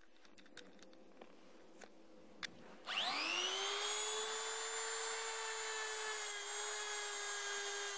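Handheld rotary tool with a brush wheel: a few small handling clicks, then about three seconds in the motor switches on and winds up in a rising whine to a steady high-speed run. The spinning brush is held against steel pliers to scrub scale off the metal.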